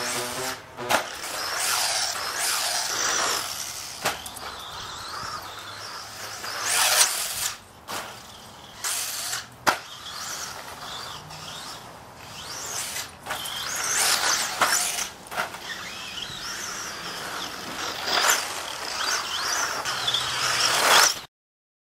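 A radio-controlled buggy's motor whining as it speeds up and slows down again and again on a dirt track, the sound swelling and falling as the car passes. It cuts off abruptly near the end.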